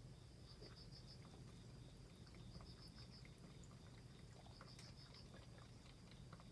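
Faint cricket chirping: short chirps of four or five quick pulses, about one every two seconds, over a low steady hum with a few tiny clicks.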